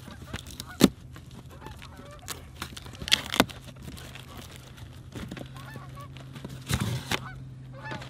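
Cardboard and plastic wrapping being handled as a box is unpacked: a sharp knock about a second in, two more around three seconds, and a louder rustling cluster near seven seconds. Geese honk in the background over a steady low hum.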